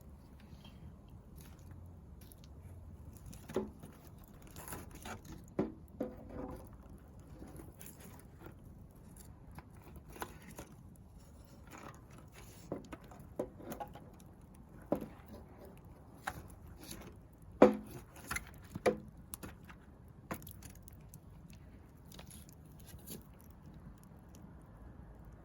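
Wood fire crackling, with irregular sharp pops and snaps over a low steady background; the loudest snap comes a little past the middle.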